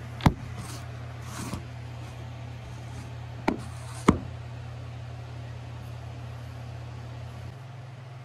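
A phone being handled and set down on its side: a few sharp knocks and rustles, the loudest about a quarter second in and about four seconds in, over a steady low hum that stops near the end.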